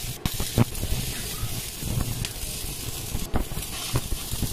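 Stick (electric arc) welding of expanded steel mesh to a steel frame: the arc crackles steadily with irregular sharp pops.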